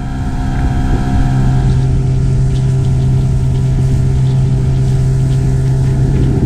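Outboard motor of an inflatable boat running at a steady cruising speed: an even engine drone holding one pitch, over wind and water noise, fading up over the first second.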